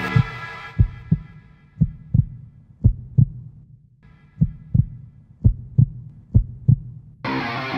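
Heartbeat sound effect: low thumps in lub-dub pairs, about one pair a second, as fading music dies away. A louder sustained sound cuts in near the end.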